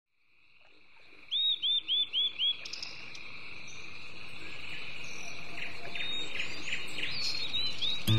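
Birds chirping over a steady, high-pitched drone of insects, fading in from silence. About a second in, a bird gives a quick run of five chirps; scattered calls follow later.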